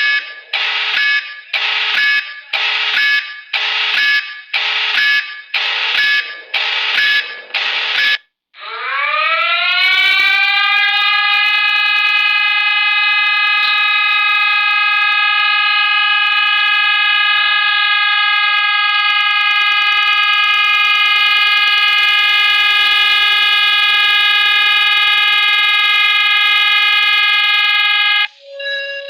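Siren sounding in short pulses about once a second for the first eight seconds. After a brief gap it winds up in pitch and holds one steady tone for about twenty seconds. It cuts off suddenly, and a lower tone begins near the end.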